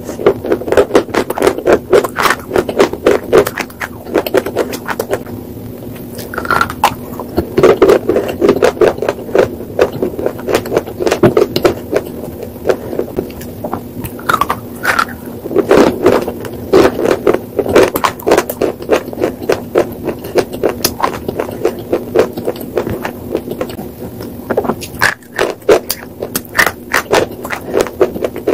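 Close-miked crunching of chalky white slate pieces being bitten and chewed: rapid sharp crackles and snaps coming in dense clusters, over a faint steady hum.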